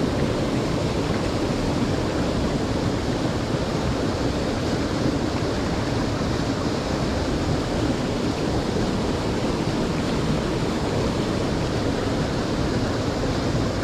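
Creek water rushing steadily past, an even, unbroken noise.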